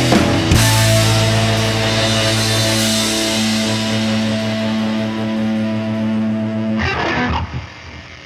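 Background rock music: a hit about half a second in, then a held guitar chord ringing for several seconds. The music drops away near the end.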